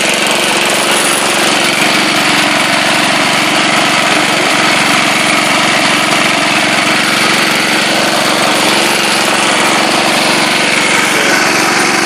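Small single-cylinder Tecumseh lawn mower engine running steadily at a constant speed, driving a GM alternator to charge a 12 V battery.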